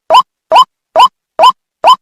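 White-breasted waterhen (ruak-ruak) lure call: a short, rising nasal note repeated about twice a second, five times, in a steady series.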